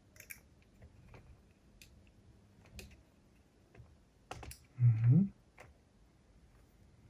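Scattered light clicks and taps of small cassette-deck transport parts being handled during reassembly. About five seconds in comes a brief, loud low hum that rises in pitch.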